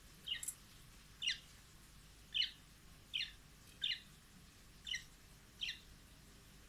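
Budgerigar chirping: seven short, sharp calls, each dropping quickly in pitch, about one every second.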